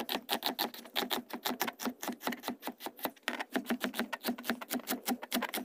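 Chef's knife rapidly chopping an onion on a plastic cutting board: an even run of sharp knife strikes, several a second.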